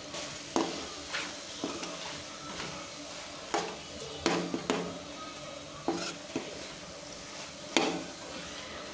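Steel spatula scraping and knocking against a metal kadai as goat lung pieces are stirred with masala, in irregular strokes, over a faint steady sizzle from the pan.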